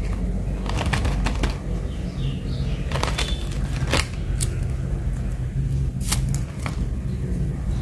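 Crinkling and sharp clicks of cellophane-wrapped sticker packs and a plastic blister tray being handled, a scattered handful of crackles over a steady low background rumble.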